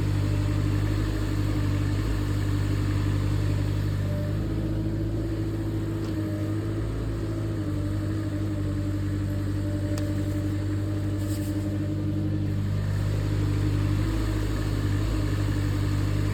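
Mini excavator's diesel engine running steadily under working load, its pitch shifting slightly now and then.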